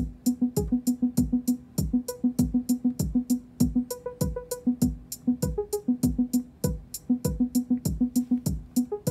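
Modular synthesizer sequence played through an ER301 sound computer. Crisp ticks fall on every 16th note, a kick drum lands a falling thump in an uneven Euclidean rhythm, and a short pitched note repeats, mostly on one pitch with a few higher ones. The note line skips some steps, because its trigger probability has been turned down on some tiles.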